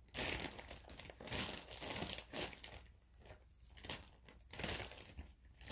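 Small plastic zip-top bag crinkling as it is handled, in a run of short, irregular rustles.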